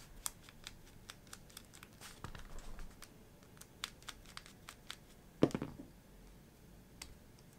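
Small clicks and ticks of a precision screwdriver turning a tiny screw out of the Tokyo Marui Glock 19's hop-up chamber, with fingers handling the small parts. There is one louder knock a little past halfway.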